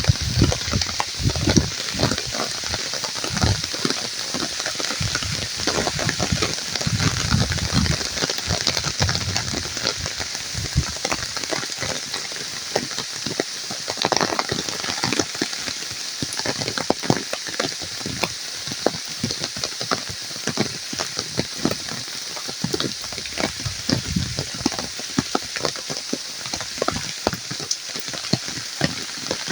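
Steady rain falling, a dense, even patter of drops, with some low rumbling during the first several seconds.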